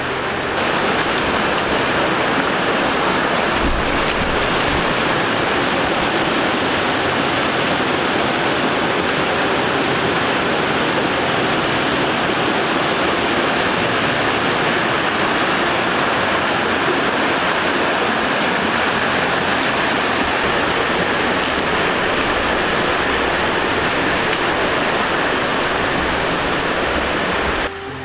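A rocky stream rushing over boulders in small cascades into a pool, a steady rush of water.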